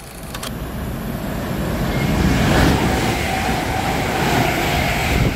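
A train passing close by: its rumble and wheel-on-rail noise build over about two seconds, then stay loud.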